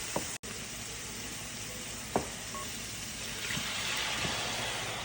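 Risotto rice sizzling steadily in the pot as it cooks in the last of its broth, with a single spoon tap against the pot about two seconds in.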